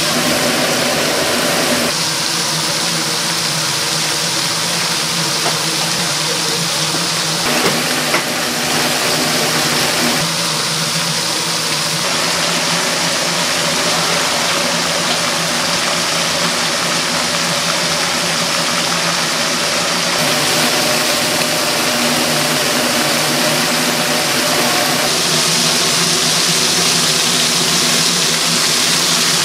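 Steady loud hiss with a low, even hum from fish-grilling equipment running.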